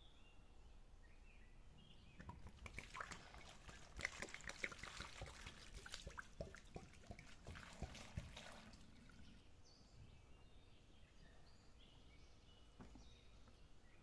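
Water poured from a clay jug over lettuce, tomatoes and mushrooms, splashing and dripping on the leaves for about six seconds, then stopping. Faint bird chirps can be heard before and after.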